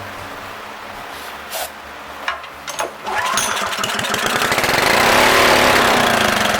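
Rebuilt Honda GX200 single-cylinder small engine being started: a few clicks, then it catches about three seconds in and runs, revving up and easing back a little.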